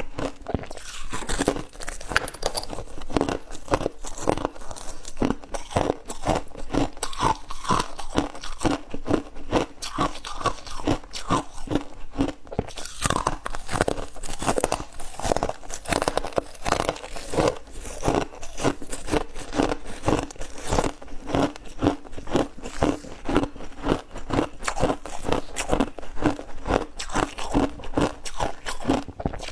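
Crunchy ice being chewed close to the microphone: a steady run of sharp crunches, about three a second.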